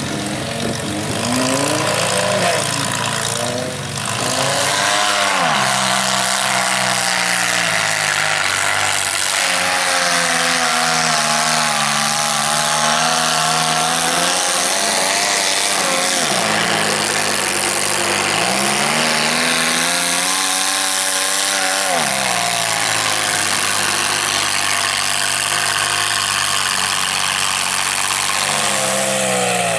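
Engine of a lifted Suzuki Samurai mud truck on oversized lugged tires, revving up and down several times as it drives through deep mud, with a steady wash of noise from the churning tires and mud.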